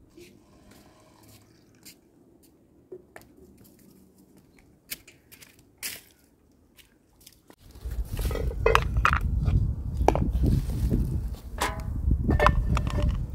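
Faint clicks and taps, then from about halfway through a loud crackling, crunching clatter of metal cooking pots being handled over a wood fire, over a heavy low rumble.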